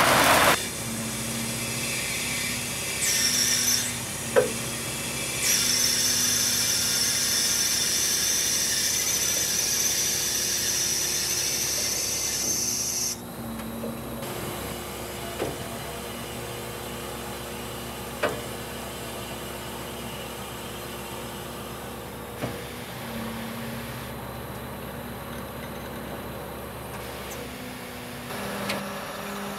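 Scania R730's V8 diesel engine idling as a steady low hum. A hiss sits over it for the first dozen seconds and stops abruptly, and a few sharp clicks come at intervals.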